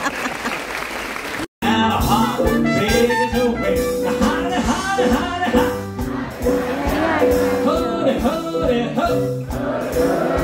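Crowd noise for about a second, then a sudden break and a live band playing a jazzy tune, with a man singing over it.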